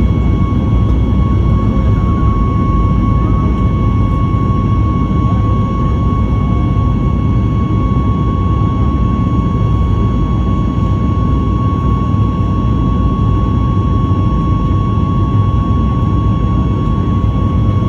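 The CFM LEAP-1B turbofan of a Boeing 737-8 MAX at takeoff thrust during the climb-out, heard from inside the cabin. A loud, steady, deep rumble with a steady high whine over it.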